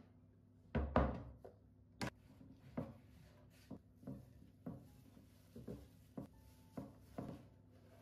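Glass storage container set down on a wooden table with a thunk about a second in. It is followed by a string of light knocks and soft paper-towel rustling as parsley is laid into the container and covered.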